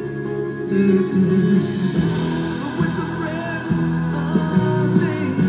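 Music: a song with singing over plucked guitar, with notes held and changing.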